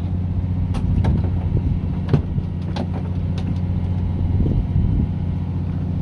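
Fishing boat's engine running with a steady low hum. Several sharp clicks and light knocks from tackle being handled on deck sound over it, roughly one a second.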